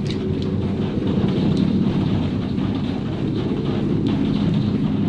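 Large wooden cat exercise wheel spinning as a cat runs in it, a steady low rumble of the wheel rolling on its base.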